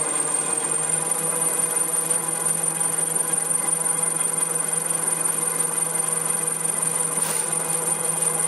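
YD-PL200C toilet-roll rewinder line running: a steady machine hum and rattle with a high-pitched whine, and a short hiss about seven seconds in.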